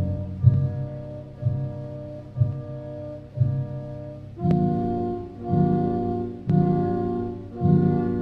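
Instrumental background music: sustained chords struck about once a second, moving up to higher notes with sharper attacks about four and a half seconds in.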